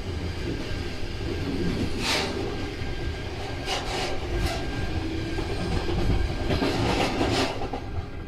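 NS Flirt electric multiple unit heard from the driver's cab, with a steady low rumble. Several short hissing, clattering bursts come through, the strongest about two seconds in and a cluster near the end.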